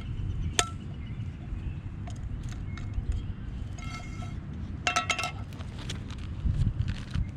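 Small metal camp-cooking gear clinking and ringing as it is handled and set out, a few separate clinks, the clearest about half a second in and around four and five seconds in, over a constant low rumble of wind on the microphone.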